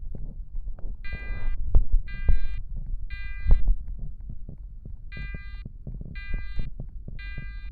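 Fire alarm horn sounding the temporal-three evacuation pattern: three half-second blasts a second apart, a pause of about a second and a half, then three more. Irregular low thumps and rumble run underneath.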